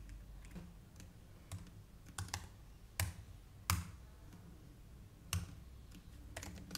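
Computer keyboard keys clicking in slow, irregular keystrokes with pauses between them, as code is typed. The loudest clacks come about three seconds in and again just before four seconds.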